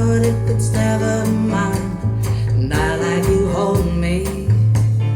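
Music with guitar and a sung melody, played back through a KEF LS50 Meta bookshelf speaker as part of a listening test.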